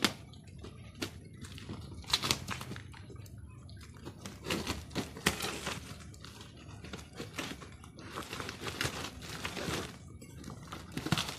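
Packaging being unwrapped by hand: irregular bursts of crinkling and rustling, with sharp clicks and knocks in between.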